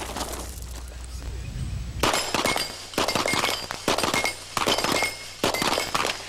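Rapid pistol fire from shooters firing prone at steel falling plates, with the ringing clang of the plates being struck and knocked down. The shooting starts about two seconds in and goes on as a quick run of sharp shots and hits.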